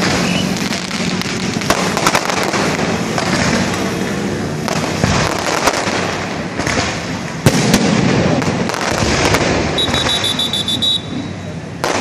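Fireworks going off: a dense, continuous crackle dotted with many sharp pops and bangs, the loudest about seven and a half seconds in.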